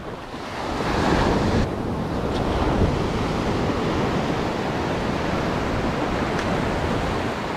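Ocean surf breaking and washing up the sand at the water's edge: a steady rush of water that swells about a second in.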